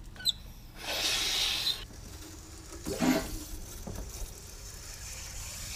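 Outdoor hose spigot being opened: a click, then about a second of loud hissing as water rushes through the tap and hose. A short knock follows, then water runs on with a fainter steady hiss.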